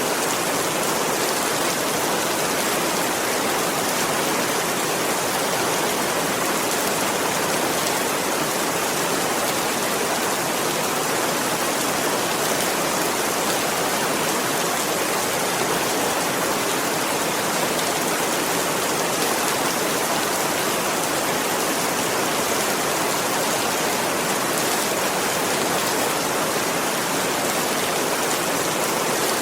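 Steady rain falling, an even hiss of many drops with no distinct single drips or thunder.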